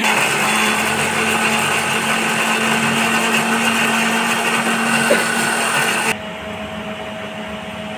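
Usha electric mixer-grinder running steadily, grinding soaked Shankeshwari chillies and garlic with a little added water into a paste. About six seconds in it cuts off suddenly, leaving a fainter steady hum.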